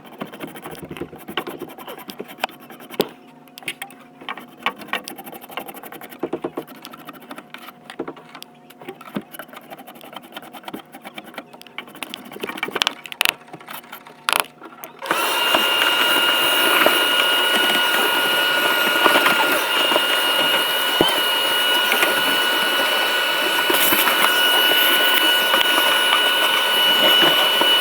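Scattered clicks and knocks of hands-on work, then about halfway in an electric motor-driven machine starts suddenly and runs steadily, with a hiss and a high whine held at one pitch.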